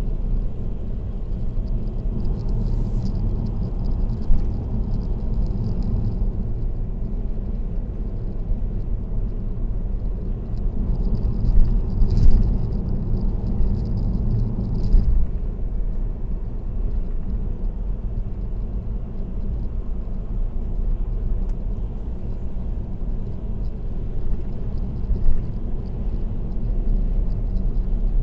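Steady tyre and road rumble of a car cruising on an expressway, picked up by a dashcam inside the car, with a few brief bumps about 4, 12 and 15 seconds in.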